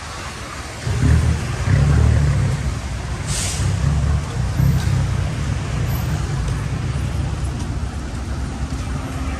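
Road traffic passing close by, with a low rumble starting about a second in and a short hiss a few seconds later.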